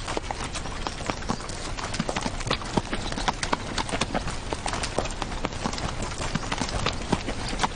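Horse hooves beating quickly, a dense clatter of hoofbeats.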